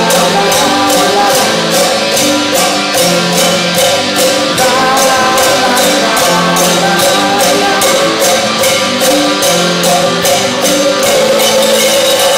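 Live rock band playing, with guitar and a sharp percussion hit keeping a fast, even beat.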